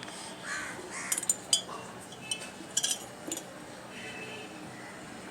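Spoon clinking against a teacup while honey is added to the tea: a few sharp, ringing clinks about a second in, and another cluster near three seconds.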